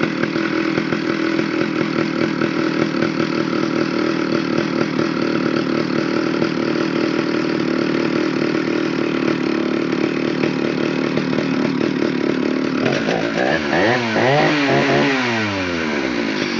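Stihl 051 chainsaw's 89 cc two-stroke engine running steadily, then revved up and down several times in the last few seconds.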